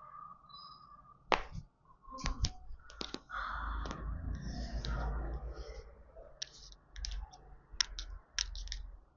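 Joints cracking during a chiropractic adjustment: a string of sharp clicks and pops, about ten spread across the stretch, with a stretch of rustling in the middle.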